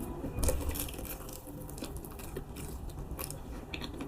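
Close-up mouth sounds of a person eating Monthong durian: chewing, with a few short wet clicks.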